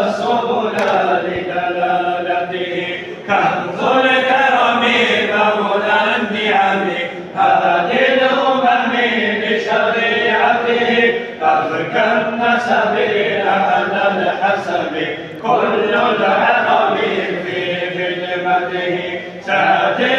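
Men chanting a mawlid hymn together in praise of the Prophet Muhammad, in long sung phrases with a short break about every four seconds.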